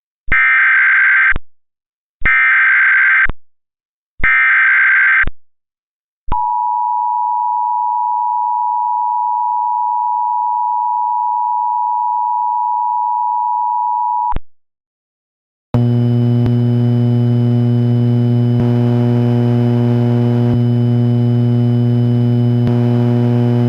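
Emergency Alert System SAME header: three bursts of warbling digital data of about a second each, encoding a Tornado Watch. Then the two-tone EAS attention signal sounds steadily for about eight seconds and cuts off. After a short gap a steady low hum with many overtones begins.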